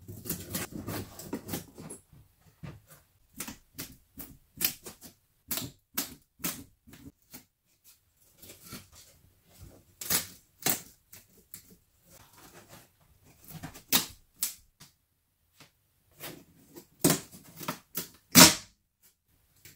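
Flat pry bar and hammer worked by hand against wooden door-frame trim: irregular sharp taps, knocks and cracks of metal on wood, with a scraping rumble in the first couple of seconds and the loudest knocks near the end.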